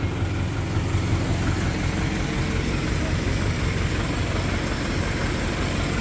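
Crane truck's engine idling steadily, a low, even drone with no change in speed.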